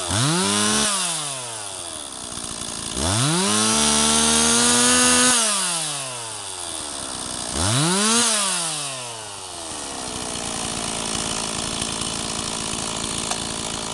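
Stihl 026 two-stroke chainsaw idling with its throttle opened three times. A quick rev comes first, then one held high for about two seconds, then another quick rev. Each time the pitch rises and falls back to a steady idle, and the saw idles for the last few seconds.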